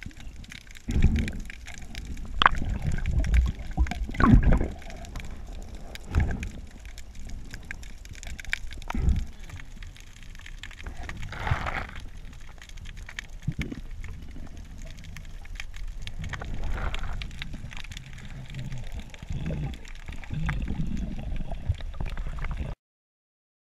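Underwater sound picked up by a camera during a freedive: water sloshing and gurgling around it, with irregular dull knocks and small clicks. A short hiss comes about halfway through. The sound cuts off suddenly just before the end.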